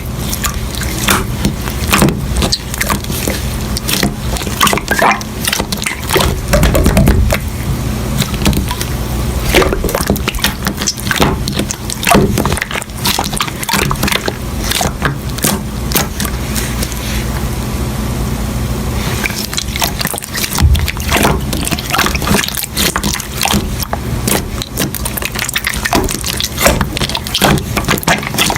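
Slime being squished and pressed by hand, giving a dense run of wet clicks and pops over a steady low hum.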